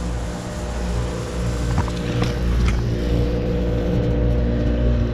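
2018 Lennox Elite heat pump running in cooling mode: a steady compressor hum with several steady tones over the low rush of the condenser fan. A few faint ticks come about two seconds in.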